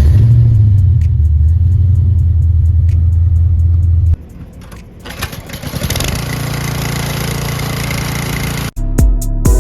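Ford Fox-body Mustang's engine just started, revving briefly as it catches, then running steadily for about four seconds before it cuts off suddenly. A quieter steady running sound follows.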